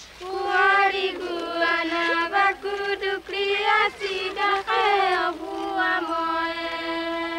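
Trobriand women singing a traditional song together in a chant, several voices on long, level notes with short breaks between phrases. The last note is held for about two seconds near the end.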